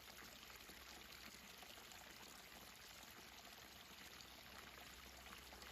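Faint, steady babbling water, like a small brook, an even rush with no breaks.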